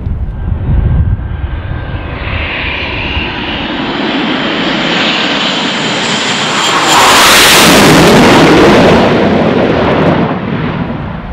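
Blue Angels F/A-18 Hornet jet passing close by: the jet noise builds over several seconds with a high whine on top, peaks loudly about seven seconds in, and falls away near the end.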